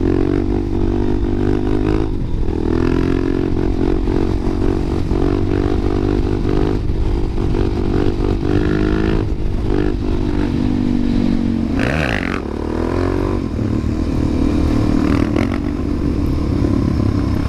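Suzuki DR-Z400SM's single-cylinder four-stroke engine running under way on the street, its revs dipping and rising a few times with the throttle.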